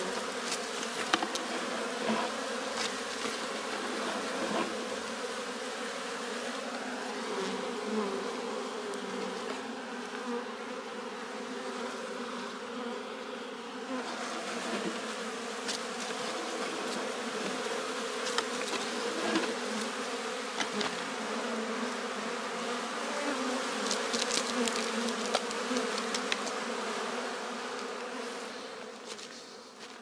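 Honey bees buzzing at a hive entrance: a steady hum with scattered light clicks, fading near the end.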